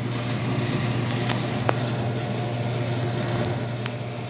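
Steady low machine hum with a few light clicks and taps over it.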